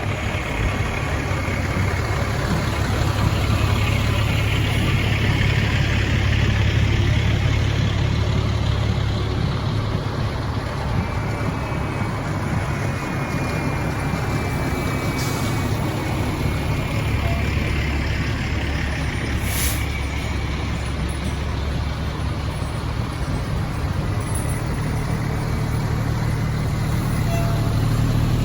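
A large truck engine running steadily with a low rumble, a little louder a few seconds in and again near the end.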